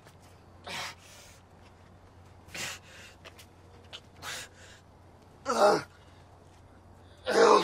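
A man gasping for breath in pain after a car crash: short, sharp breaths every second or two, with two much louder, voiced gasps about five and a half seconds in and near the end.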